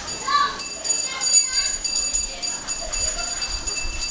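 Music with jingling, bell-like high notes ringing on and off.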